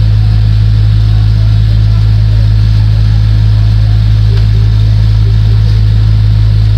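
A loud, steady low hum that does not change in pitch or level.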